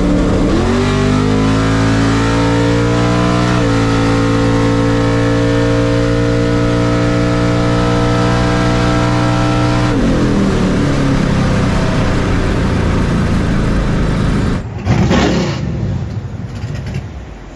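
ZZ632 big-block V8 in an OBS Chevrolet pickup at full throttle on a drag strip pass, heard from inside the cab. The engine's pitch climbs fast off the launch and then holds high and steady. About ten seconds in it falls away as the driver lifts off at the end of the run. Near the end there is a short louder burst, then the engine is quieter.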